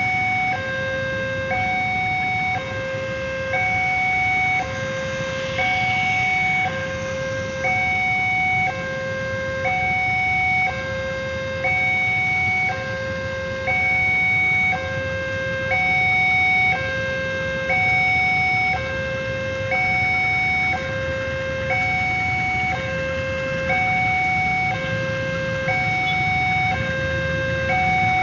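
Railway level-crossing warning alarm sounding: an electronic two-tone signal that alternates between a lower and a higher tone about once a second. It is the sign that the barrier is down and a train is approaching.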